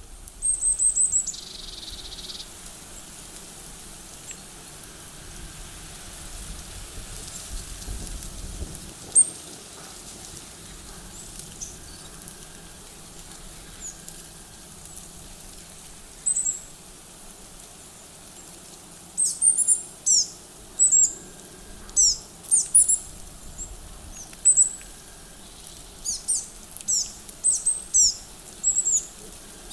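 Small songbirds calling with short, high-pitched chirps. There is a quick burst at the very start and scattered single calls, then a busy run of repeated calls from about two-thirds of the way in.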